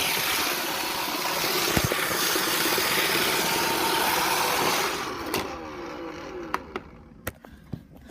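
iRobot Roomba robot vacuum running, a steady motor and brush noise that fades out about five seconds in. A few light clicks follow.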